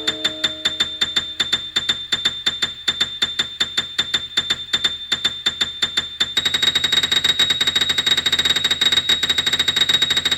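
A high electronic tone repeated in rapid, even pulses, like an alarm beep. It speeds up and gets louder about six seconds in.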